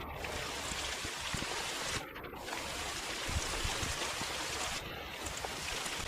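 Steady hiss of rain, with wind buffeting the microphone in low rumbles. The hiss dips out briefly twice.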